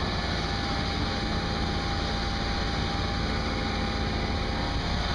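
Car engine idling steadily: a continuous, even hum with a faint steady high tone running over it.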